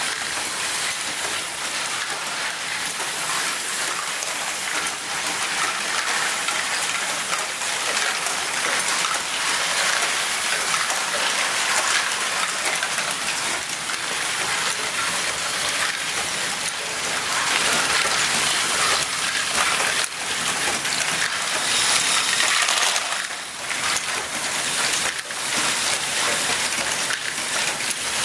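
Large Lego ball machine running: a dense, continuous clatter of many small plastic Lego balls rolling, dropping and knocking against plastic chutes, cups and lifts, like a shower of tiny clicks.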